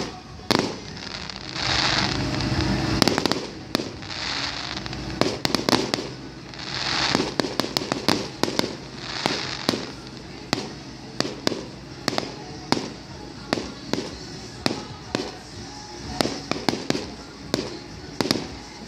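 Firework display: aerial shells bursting with many sharp bangs, coming several a second in the second half, between hissing swells that last about a second each.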